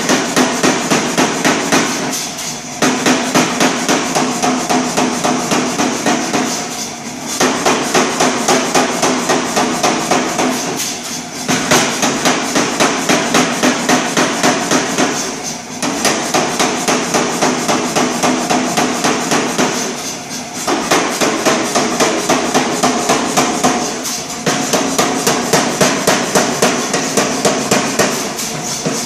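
A 100 lb Reiter air hammer striking a hot 1045 steel bar in a fast, even rhythm, about four blows a second. The blows come in runs of about four seconds, with brief pauses between them.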